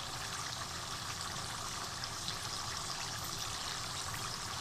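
Chicken in a yogurt and spice masala cooking in a pot on the stove: a steady sizzling, bubbling hiss with faint crackles.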